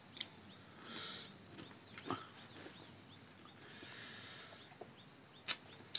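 Faint insect buzz, a steady high-pitched drone, with a few light clicks.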